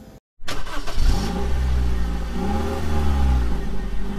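Car engine revving with a deep rumble, its pitch climbing and falling back, starting abruptly after a brief gap.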